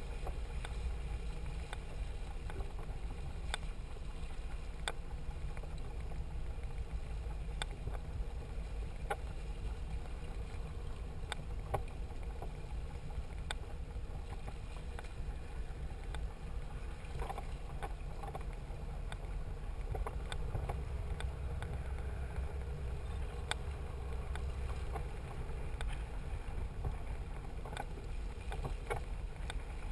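A motor cruiser's engines running steadily at slow speed: a low, even rumble, with scattered short ticks over it.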